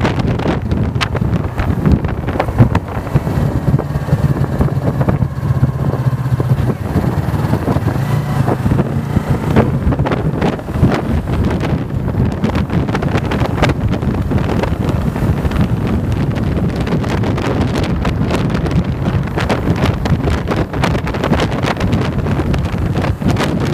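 Wind buffeting the microphone on a moving motorcycle, with the Yamaha's engine running steadily underneath.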